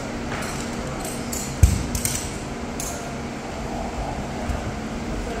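Knocks and clinks of a climber moving up an indoor climbing wall: a heavy thump about a second and a half in, then several sharp clicks over the next second, over a steady low hum.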